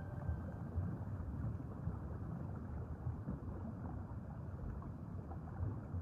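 Low, muffled underwater ambience: a steady rushing wash with no distinct events.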